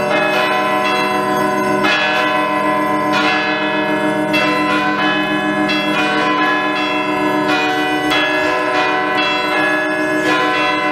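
Peal of church bells ringing: strikes come in quick succession, each bell's tone ringing on and overlapping the next.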